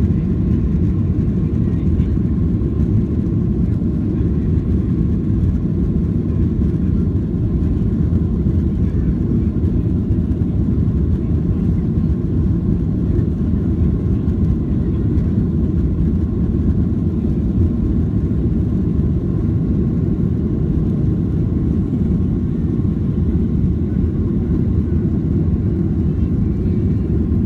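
Steady roar of a Ryanair Boeing 737's jet engines and the rushing air, heard inside the passenger cabin. A faint steady whine sits above the low, even rumble.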